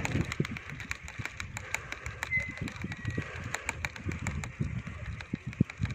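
A bicycle rolling along a paved path, with irregular rattling clicks and a low rumble of wind and road on the microphone. A brief high whistle, falling slightly, comes a little over two seconds in.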